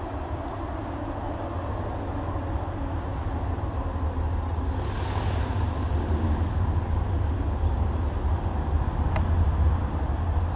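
A steady low outdoor rumble, with a brief hiss about five seconds in and a faint click near the end.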